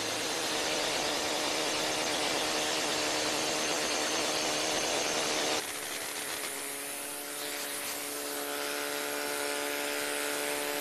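Pneumatic bush hammer with a pointed tungsten-carbide head, hammered against granite in a rapid, continuous chatter that dresses the stone surface flat. About five and a half seconds in it drops away, and quieter background music with held tones comes in.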